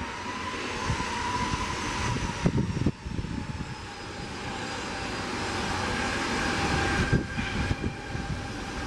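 Jet engine whine and rush from a running aircraft, with thin high tones that drift slightly in pitch, growing gradually louder. Irregular low rumbles and a few knocks sound underneath.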